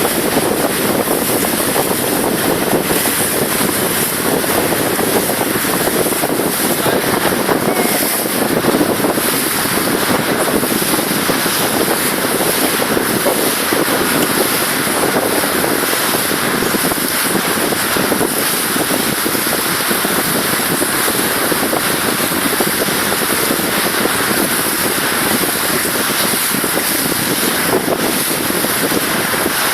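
Steady rush of wind and water aboard a water taxi under way, with wind buffeting the microphone.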